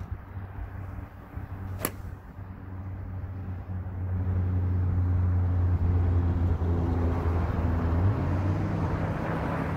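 An iron club strikes a golf ball off a range mat, a single sharp click about two seconds in. A low engine drone then builds up and holds, the loudest sound.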